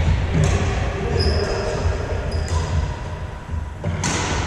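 Badminton rally: sharp racket hits on a shuttlecock, the loudest about four seconds in, echoing in a large hall. A brief high squeak comes a little after one second in, over a steady low hum.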